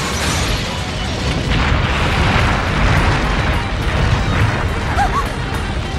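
Avalanche sound effect: a continuous, dense roar with a heavy low rumble of snow pouring down, mixed with background music.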